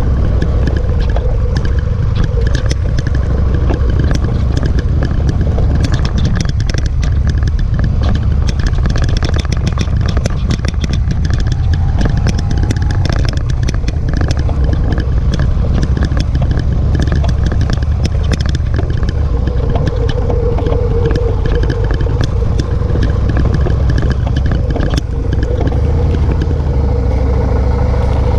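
Motorcycle engine running while riding over a rough dirt track, with heavy wind rumble on the camera microphone and frequent short clattering knocks from the bike. Near the end the sound eases into a steadier low engine tone.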